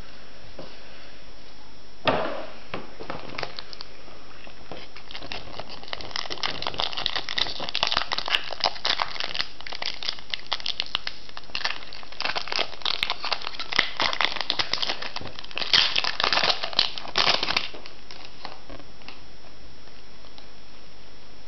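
Foil wrapper of a Pokémon trading card booster pack crinkling and crackling as it is handled and opened. There is one sharp rustle about two seconds in, then a dense run of crinkling that stops about four seconds before the end.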